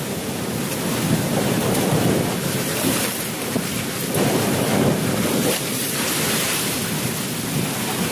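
Wind buffeting the microphone over the wash of sea waves: a loud, steady rushing that swells and eases, with no distinct knocks or tones.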